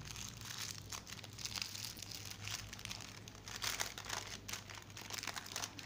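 Thin plastic wrapping crinkling and rustling in irregular crackles as it is unfolded and pulled off a new harmonica.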